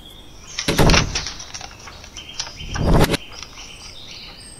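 Two short clusters of knocks, as on a wooden door, about two seconds apart, over a steady background of birds chirping.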